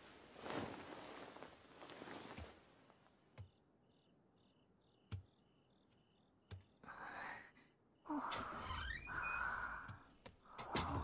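Faint crickets chirping in a steady repeating pattern, with soft breathy sighs and a few small clicks; the breathing grows louder near the end.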